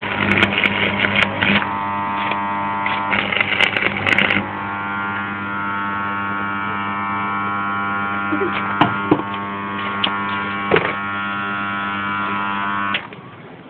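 Stick (arc) welding: the electrode arc crackles in two bursts over the first four seconds or so, then a steady electrical hum with a few light clicks runs on until it stops shortly before the end.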